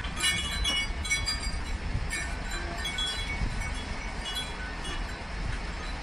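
Wind chimes tinkling with short, high ringing notes, a flurry in the first second or so and then scattered notes, over a steady low rumble of storm noise.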